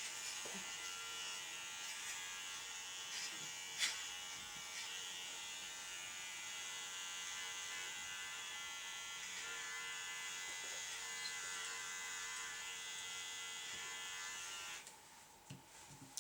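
Electric dog grooming clippers running with a steady buzz, with a sharp click about four seconds in; the clippers stop near the end.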